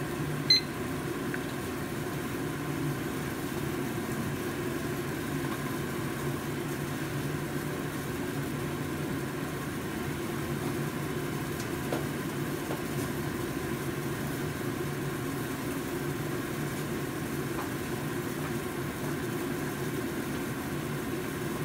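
Pot of soup boiling on a lit gas stove burner, a steady, even noise of flame and bubbling. A single short beep from a digital kitchen timer about half a second in, as its countdown is started.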